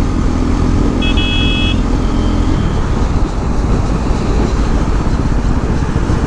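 KTM motorcycle being ridden in traffic, its engine running under a heavy rumble of wind and road noise; the engine note drops about two and a half seconds in. A short high horn beep sounds about a second in.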